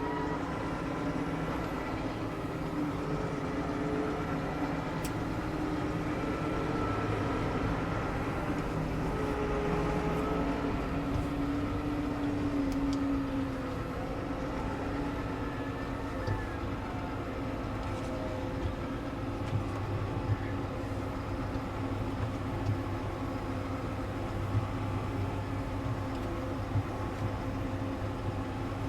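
New Holland T7.315 tractor's diesel engine running, heard from inside the cab: a steady drone whose pitch wavers during the first half, with a few light clicks.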